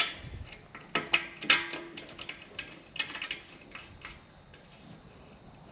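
Light metallic clicks and clinks of the aluminium unloader tube and its nut being handled and threaded onto a brass tank fitting by hand. There are several sharp ticks, a few ringing briefly, mostly in the first four seconds, then little more.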